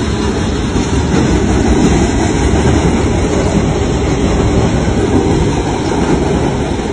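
Freight cars of a passing freight train rolling by close at hand: a loud, steady rumble and rattle of steel wheels on the rails.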